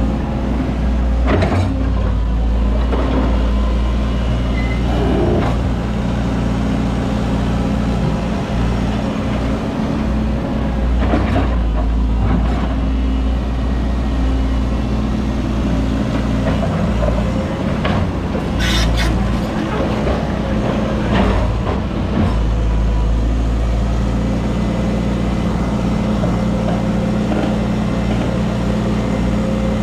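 Heavy diesel engines of an excavator and dump truck running steadily, with a few sharp clanks or hisses scattered through.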